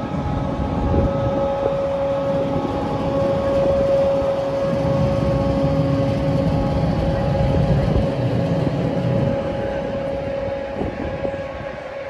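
Machinery of the cruise ship Le Dumont d'Urville, heard from alongside its hull: a steady mid-pitched hum over a low rumble. The rumble swells in the middle and eases off near the end.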